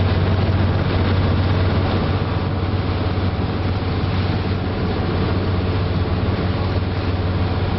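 Passenger ferry boat's engine running steadily under way, a constant low hum over a broad rushing noise.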